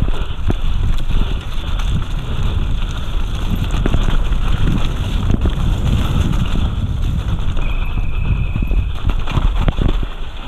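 Enduro mountain bike descending a dirt forest trail at speed: tyres rumbling over dirt and roots while the bike rattles and knocks over the bumps, with wind buffeting the microphone. A short thin high squeal rises out of it about eight seconds in.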